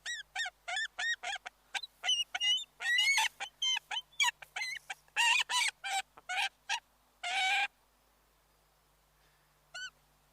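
Waterfowl calling: a fast run of short, pitched, nasal calls, several a second, breaking off about three-quarters of the way through, with one last call near the end.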